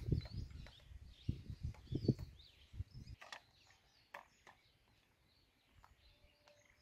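Scattered light clicks and knocks of HDPE pipe fittings being handled and tightened by hand, over a low rumble that stops about three seconds in. Faint bird chirps.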